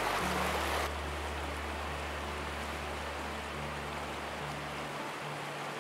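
Rushing water of a shallow rocky creek, which cuts off abruptly about a second in and leaves a softer steady outdoor hiss. Soft background music with long held low notes plays underneath.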